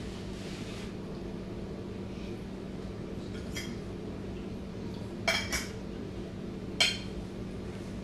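A metal fork clinking against a plate while cutting into food: one faint clink a few seconds in, two sharp clinks a little after five seconds and another near seven seconds, over a steady low hum.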